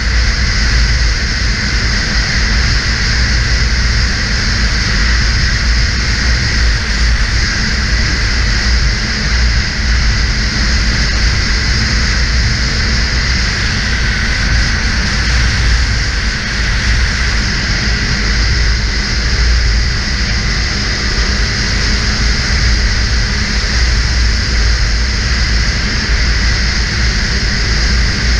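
Snowmobile engine running steadily at a constant speed, mixed with wind noise rumbling on the helmet camera's microphone.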